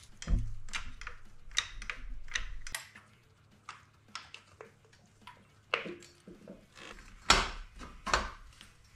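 Irregular clinks and knocks of tools and metal parts being handled during engine reassembly, with a low thud under the first few and the loudest knock about seven seconds in.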